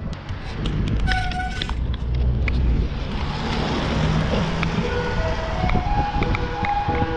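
Wind rumbling on the microphone and tyres hissing on a wet road. A couple of ice cream van chime notes sound about a second in, and the van's chime tune of single notes plays again from about halfway through.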